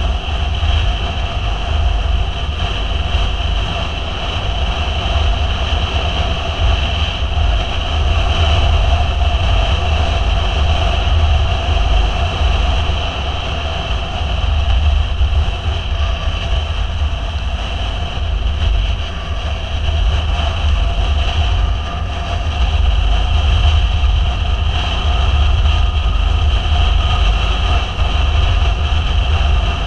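Motorcycle cruising at a steady road speed, its engine running steadily under heavy wind rumble on the camera microphone.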